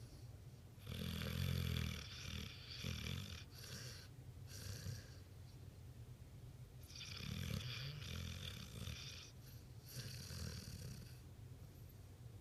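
Pit bull snoring in its sleep, in two bouts of several breaths each, about six seconds apart.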